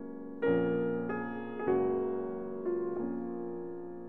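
Background piano music: slow notes and chords struck about once a second, each left to ring and fade.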